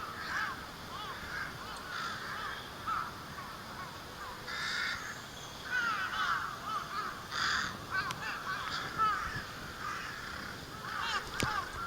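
A flock of rooks and jungle crows calling: many short caws overlapping without pause, with louder, harsher caws standing out about five, seven and a half and eleven seconds in.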